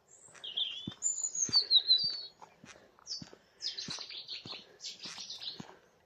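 A songbird singing loudly in a string of high chirping phrases, with a run of quick notes in the second half, over footsteps on a path about twice a second.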